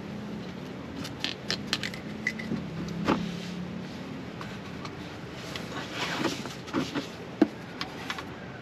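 A car's hard plastic underbody panel being handled and pressed into place by hand: scattered clicks, taps and light scrapes of plastic, irregular and of varying strength.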